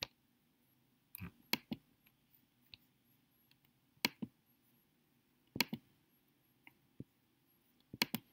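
Computer mouse clicks, short and sharp, mostly in quick pairs of press and release, coming every second or two with quiet in between.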